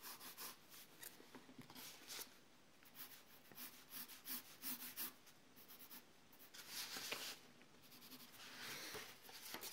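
Pencil drawing on sketchbook paper: faint, scratchy strokes, mostly short, with a few longer ones in the second half.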